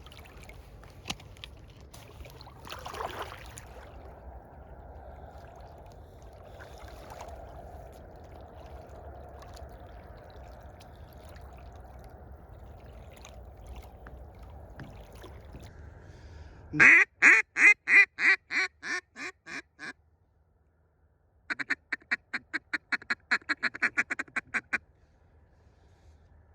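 Low wind and water noise, then a loud run of about ten mallard-style quacks that fade off over about three seconds. After a short silence comes a faster run of quacking chatter, about six notes a second, of the kind a hen mallard or a mallard duck call makes.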